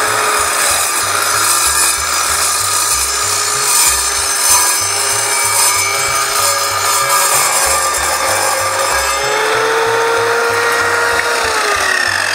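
An Evolution R210 mitre saw's multi-purpose blade cuts through thick steel tubing with a loud, continuous, high-pitched grinding whine. About ten seconds in, the whine falls in pitch as the blade winds down after the cut.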